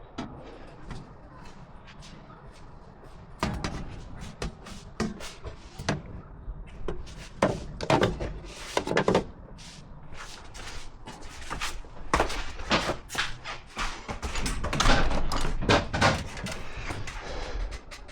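A run of irregular knocks, thumps and clatters from hands-on work: tools and hard parts being handled and set down. They come thicker from a few seconds in and are loudest in the last third.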